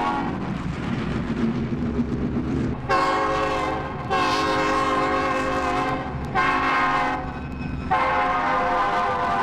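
A train's horn sounding repeated long blasts over the steady rumble of the running train. A first blast fades out at the start, then four more follow about three, four, six and a half and eight seconds in.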